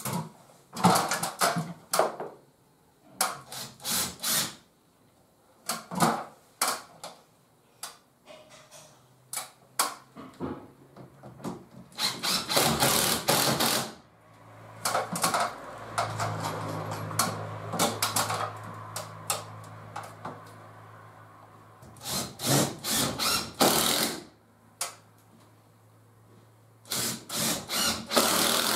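A cordless drill running in short bursts and in one longer steady run through the middle, mixed with knocks and taps of hand work on a window frame.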